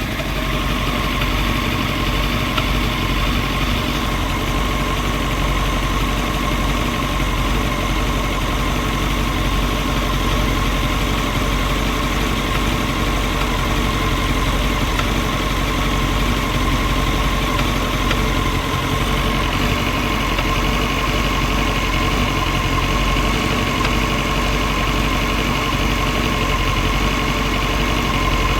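Honda CBR929RR inline-four motorcycle engine idling steadily with a metallic knocking noise, which the owner links to the cam chain tensioner.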